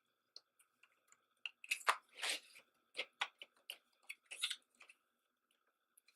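Hands handling a CD album's packaging: a scatter of small plastic clicks and crinkling rustles, busiest between about two and five seconds in.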